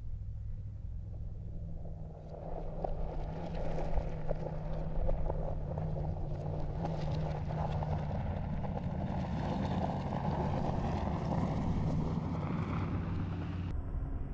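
Mercedes-AMG G63's 4.0-litre twin-turbo V8 pulling hard on a gravel track, with crackling tyre and gravel noise that swells from about two seconds in. The engine note climbs near the end, and the sound changes abruptly just before the end.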